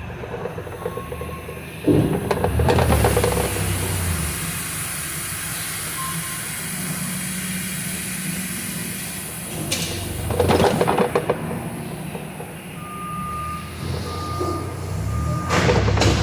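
Heavy wind gusting and buffeting, with louder surges about 2, 10 and 15 seconds in. From about 13 seconds a vehicle's reversing beeper sounds in short repeated beeps.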